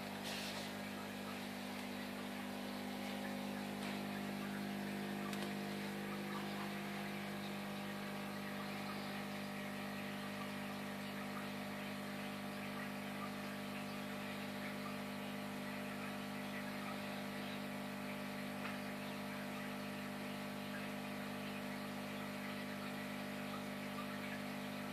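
Steady electrical hum of running aquarium equipment, with a soft even hiss of air bubbles rising from the air stones.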